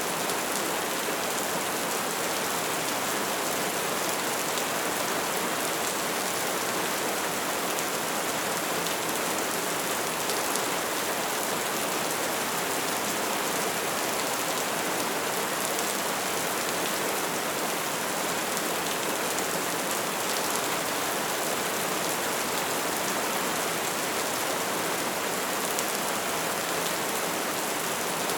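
Steady rain falling: an even hiss flecked with the fine patter of drops, unchanging throughout.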